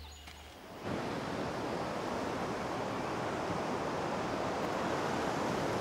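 Steady wash of ocean surf breaking on a beach, cutting in abruptly about a second in after a brief lull.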